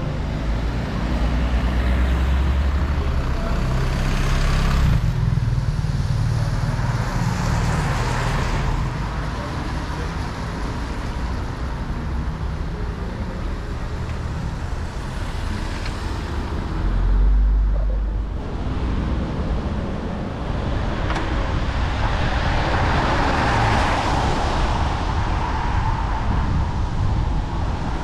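Car driving on a wet road: a steady low rumble of engine and tyres, with hiss from the wet road that swells and fades several times, and a brief heavier low rumble about 17 seconds in.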